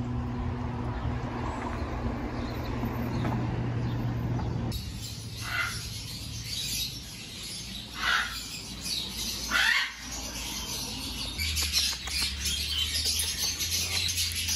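A steady low street hum, then a cut to a bird shop where caged parrots squawk loudly three times, a few seconds apart. Busy chirping of many smaller birds fills the last few seconds.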